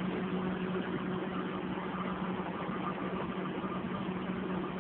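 Vehicle engine idling: a steady hum with a constant low tone, unchanging throughout.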